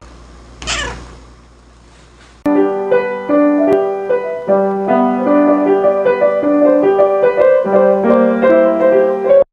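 Piano playing a string of notes over a held low note, starting suddenly about two and a half seconds in. Before that it is quieter, with one brief falling sound about a second in.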